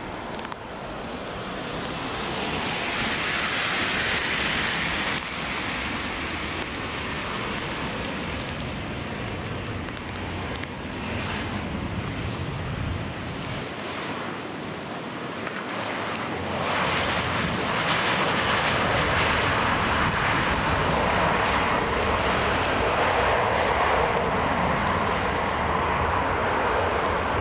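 Jet airliner engines running as the plane arrives, a continuous rushing noise that swells briefly early on and grows louder about two-thirds of the way in.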